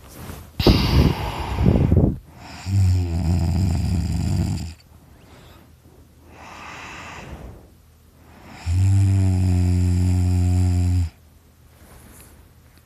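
A sleeping person snoring: two long, buzzing snores of about two seconds each, with quieter rasping breaths before and between them. The snorer puts the snoring down to extra tissue in his throat.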